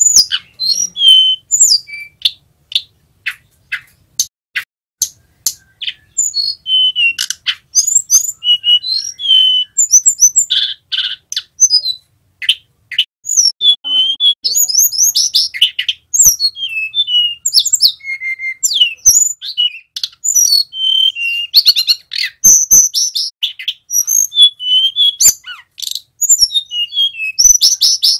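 Male hill blue flycatcher (tledekan gunung) singing: sharp clicking notes and short whistles at first, running into a dense, rapid stream of chirps, whistles and trills from about six seconds in.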